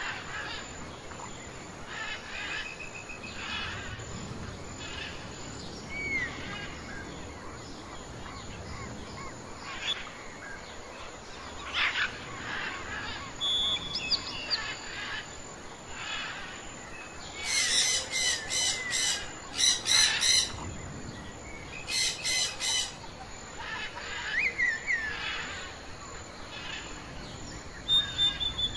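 Birds chirping and calling, with scattered short chirps and sweeping notes. A run of louder, sharp repeated calls comes about two-thirds of the way in.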